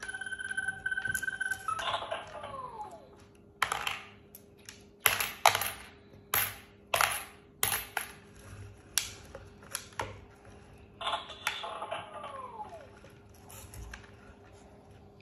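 Toy dump truck's electronic sound effects: a held beeping tone, then swooping tones about two seconds in and again near eleven seconds. Between them come about ten sharp clicks and clinks, spaced roughly half a second apart, from the toy's yellow coin-scooping arm and the coins it lifts.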